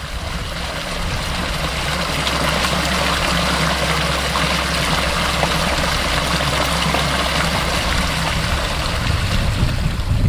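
Brook water flowing over rocks, a steady noise that grows louder over the first two seconds and then holds, with a low steady hum underneath.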